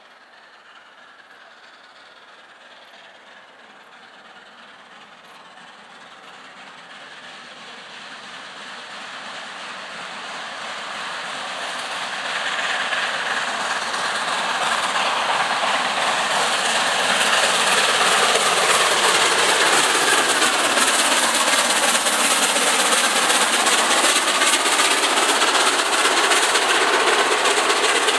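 LNER A4 three-cylinder Pacific steam locomotive hauling a passenger train. It approaches from a distance, growing steadily louder over the first fifteen seconds or so, then passes close by. The coaches follow, running past at a steady loud level to the end.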